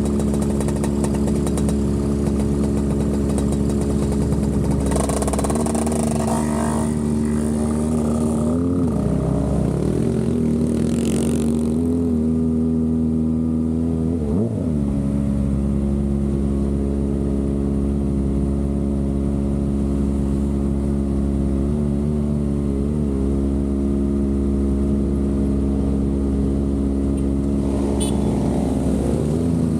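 Kawasaki ZX-25R's 250 cc inline-four running at steady high revs on the move. The pitch dips briefly and recovers twice, around nine and fifteen seconds in, and the revs fall sharply at the very end.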